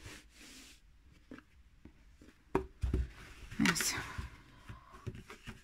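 Denim fabric and a cardboard shoebox being handled: a soft rustle of cloth at the start, then a single sharp knock about two and a half seconds in.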